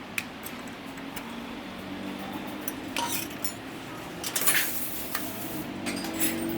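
Metal hand tools and engine parts clinking and clattering as a motorcycle engine is taken apart, in scattered sharp clicks with a busier burst of clatter a little past the middle and again near the end.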